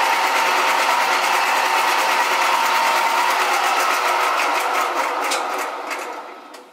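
BDB-929 metal lathe running with a green abrasive pad held against the spinning metal bar. About three seconds in, the rubbing tone fades as the pad comes off. Near the end the lathe is switched off and spins down, the sound dropping away.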